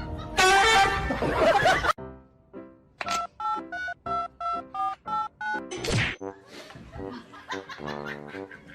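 A loud noisy burst, cut off abruptly, then a run of short electronic beeps alternating between two pitches, about three a second, like phone keypad tones or a music sound effect.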